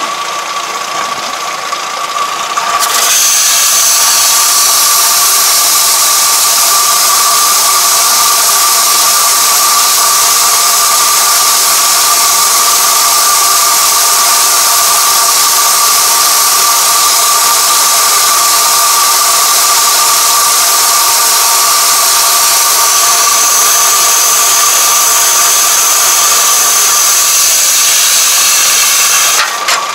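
Takakita round-bale wrapper running as it turns a straw bale and wraps it in stretch film: a steady mechanical running noise with a constant whine, which gets louder about three seconds in and then holds steady.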